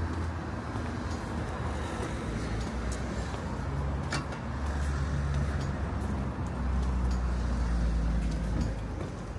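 Street traffic: the low engine rumble of a motor vehicle running nearby, swelling and easing off, over a general town-street background. A brief sharp high-pitched sound about four seconds in.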